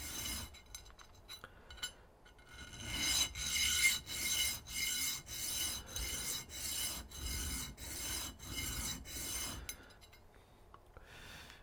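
Hand file rasping across a brass ring in steady back-and-forth strokes, about two a second, stopping about ten seconds in.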